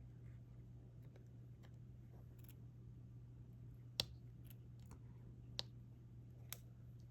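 Diamond-painting stylus pressing resin drills onto the canvas: faint scattered ticks and three sharper clicks, about four, five and a half and six and a half seconds in, over a steady low hum.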